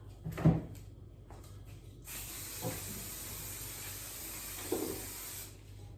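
All-in-one disinfectant spray bottle giving a steady hiss of mist for about three seconds, after a single knock about half a second in.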